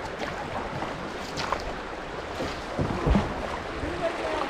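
Kayak paddles splashing in river water: a few separate splashes over a steady wash of moving water.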